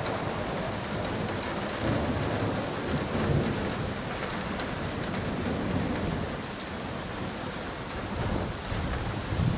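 Heavy rain falling steadily in a thunderstorm, with low rumbles of thunder swelling a few times.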